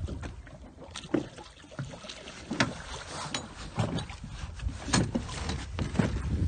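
Wind buffeting the microphone over water lapping against an inflatable boat, with irregular splashes and knocks as a hooked pollack is brought alongside the tube.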